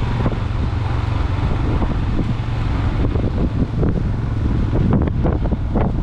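Motorcycle engine running steadily while riding on a gravel road, with wind on the microphone and frequent knocks and rattles from the rough surface, busier in the second half.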